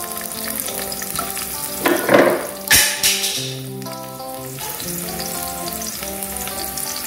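Sliced onions sizzling in hot oil in an aluminium frying pan, a steady hiss with two louder bursts about two and three seconds in, the second starting with a sharp click.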